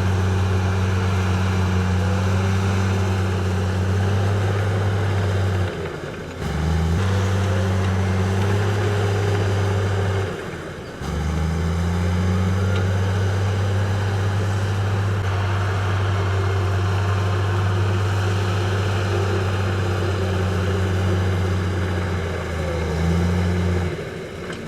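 Heavy construction machinery's diesel engine running with a steady deep drone. The sound dips briefly and then picks up again three times: about six seconds in, around ten seconds in, and near the end.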